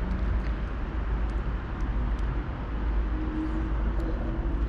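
Steady low rumble of a bass boat's outboard motor running.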